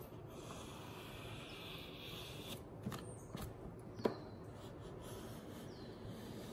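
Yellow crayon rubbed along the edge of a sheet of paper to draw a border: one scratchy stroke of about two seconds, then a few light taps and paper-handling clicks, the loudest about four seconds in.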